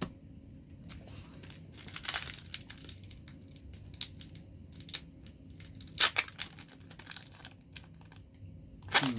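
Crinkling and tearing of a foil trading-card booster pack wrapper being handled, in short bursts with a few sharper crackles.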